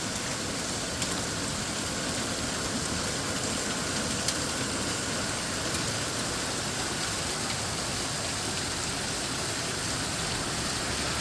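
Heavy thunderstorm rain falling steadily on the surroundings, with a few sharp ticks of drops or small hailstones striking, one about a second in and one about four seconds in.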